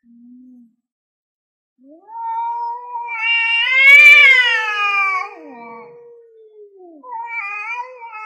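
Two tomcats caterwauling at each other in a territorial standoff before a fight. A short low call comes at the start, then a long wavering yowl swells to its loudest about four seconds in and falls away, and another yowl starts near the end.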